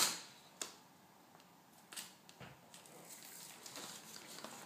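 Handling noises from a multi-tool and its packaging: a sharp click at the start, a couple of fainter clicks, then faint rustling that grows toward the end.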